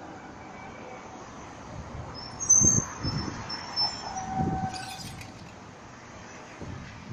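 Melbourne B2-class articulated tram passing close by on street track. Several low thuds from the wheels on the rails, loudest about two and a half seconds in, with a brief high-pitched squeal around the same time.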